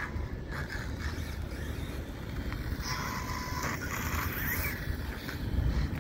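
Losi ProMoto electric RC motorcycle running on asphalt: a thin motor whine and tyre hiss that grow louder as it passes closer about three seconds in, over a low steady rumble.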